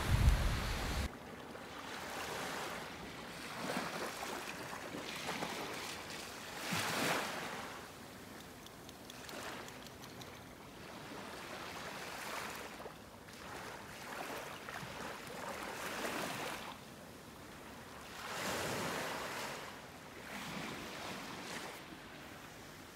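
Small waves washing onto a sandy beach, swelling and fading every few seconds, with light wind on the microphone. A loud low rumble of wind buffeting the microphone cuts off about a second in.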